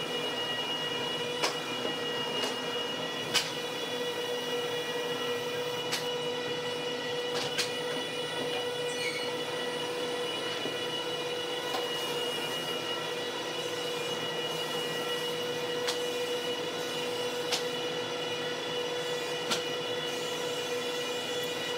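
Steady mechanical hum with a constant pitch, with scattered sharp clicks and knocks.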